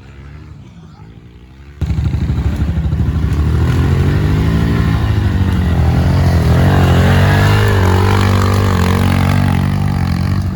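Pit bike's small four-stroke engine running and revving up and down as it is ridden, faint at first, then suddenly much louder and close about two seconds in.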